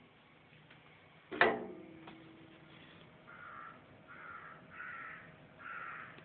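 A sharp knock with a short ringing tail about a second and a half in, as a window is slid open. Then a crow caws four times, roughly one caw a second.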